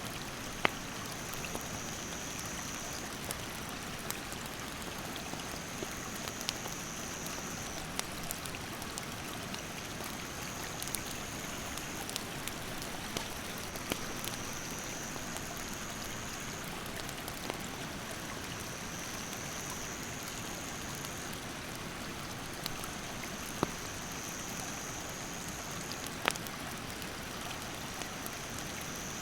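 Steady rush of a mountain stream, with the sharp pops and crackles of a wood campfire: a loud pop about a second in and two more near the end. A high-pitched insect call repeats in long even buzzes every few seconds.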